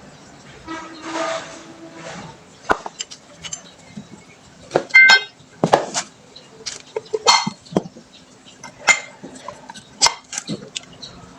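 Metal tools and parts clinking and knocking together in an irregular string of sharp clinks, a few of them ringing briefly.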